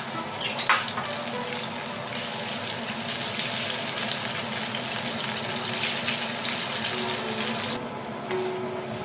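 Kitchen tap running water into a sink. It starts just after the beginning and is shut off suddenly about eight seconds in, with a sharp knock near the start.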